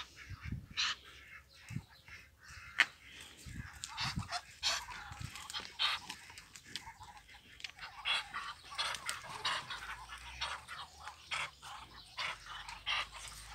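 A flock of Muscovy ducks making many short, quiet calls one after another.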